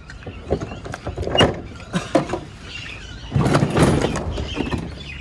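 Metal cabin door of an old airliner fuselage being unlatched and pulled open by hand: a few sharp knocks and clicks from the latch, then a louder rattle lasting about a second, a little past halfway.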